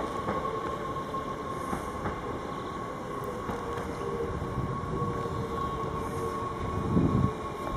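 NS Sprinter Lighttrain electric multiple unit running along the station track, its traction motors giving a steady whine that falls slightly in pitch over a low rumble. A louder low rumble comes in near the end.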